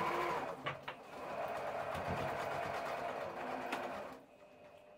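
Sewing machine running, stitching a line of topstitching along the folded edge of a fabric bag. A short run at the start stops briefly with a couple of clicks, then the machine runs steadily for about three seconds and stops near the end.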